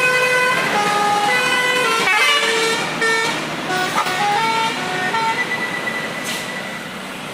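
Tour bus telolet horn, a set of musical air horns playing a quick tune of stepped notes, each lasting a few tenths of a second, over the bus's engine and road noise. The tune stops about five seconds in, leaving one held tone as the sound fades away.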